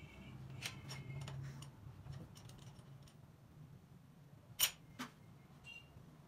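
Sharp metal-on-metal clicks and clacks from hand work on a crankshaft grinding machine with a crankshaft mounted: a few light clicks in the first two seconds, then two sharp clacks about half a second apart late on, the first the loudest. A low steady hum runs underneath.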